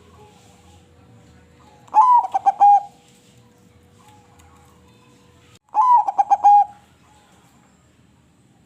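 Crossbred zebra dove (perkutut) singing two phrases of its quick, stuttering cooing song, each about a second long and about four seconds apart.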